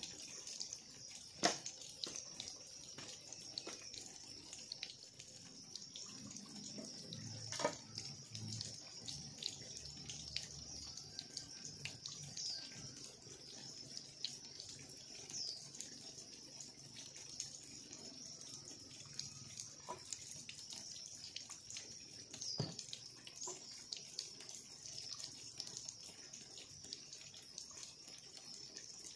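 Green bamboo poles knocking and clacking now and then as they are handled and fitted into a frame, a few sharp knocks with the loudest one near the start, over a steady high-pitched hiss.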